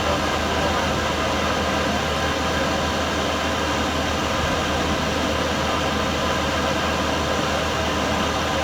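Steady droning noise with a constant low hum underneath, unchanging throughout, with no shots or impacts.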